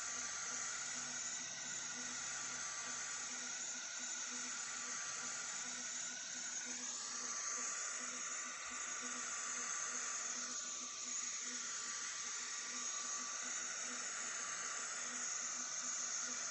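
Sculpfun S30 Pro diode laser engraver at work: a steady airy hiss from the laser head's cooling fan and air assist. Twice a fainter whine from the stepper motors rises and falls as the gantry moves the head across the board.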